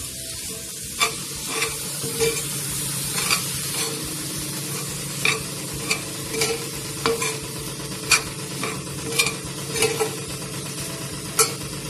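Egg bhurji sizzling in a hot pan while a metal spatula stirs it, clinking and scraping against the pan every half second to a second over a steady sizzling hiss.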